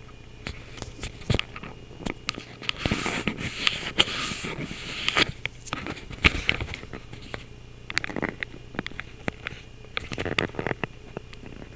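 Logitech webcam microphone with a steady low electrical hum, overlaid by an irregular jumble of sharp clicks, crackles and short hissing bursts close to the microphone.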